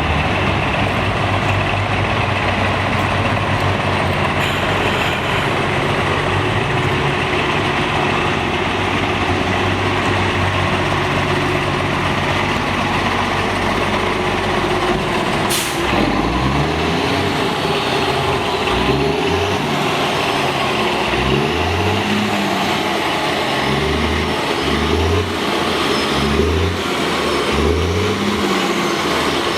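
A Caterpillar C13 diesel in an MCI D4500CL coach, running steadily at first. About halfway through there is a short air-brake hiss, and after it the engine note rises and falls again and again.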